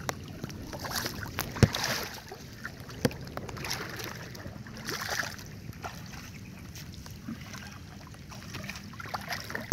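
Water splashing and sloshing as a person wades and works a gill net by hand in knee-deep water, with a few sharp knocks, the loudest about a second and a half in.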